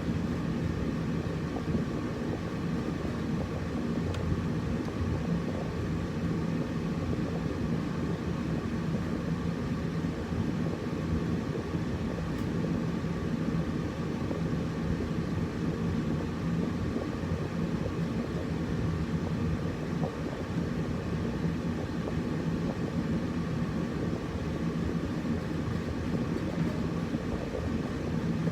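Air conditioner running steadily: a constant low hum and rush of air, with a fainter steady higher tone above it.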